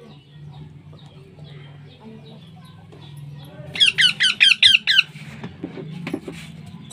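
A parrot giving a quick run of about six loud, shrill, wavering calls, about four seconds in.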